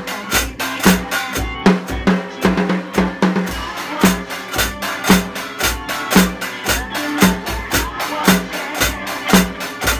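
Drum kit played with wooden sticks in a steady groove: bass drum thumps, snare hits and cymbal strokes.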